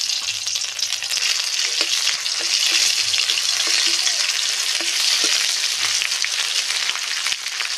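Garlic and bay leaf frying in hot mustard oil in a metal kadai: a steady, loud sizzle, stirred with a metal spatula that clicks and scrapes against the pan now and then.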